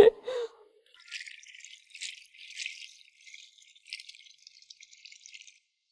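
Yardlong beans being rubbed and swished by hand in a basin of water under a running tap: a soft, irregular rustling and splashing that starts about a second in and stops shortly before the end.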